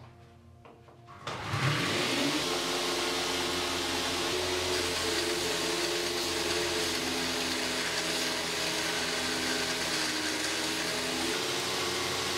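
Electric motor of a homemade belt grinder starting up about a second in, then running steadily with a hum of several steady tones over a noisy whirr.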